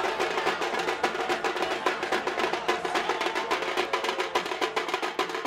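Procession drumming: a tasha struck in a fast, steady stream of sharp stick strokes over deeper drums.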